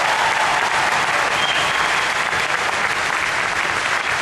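Large crowd applauding, a steady, dense clapping that carries on without a break.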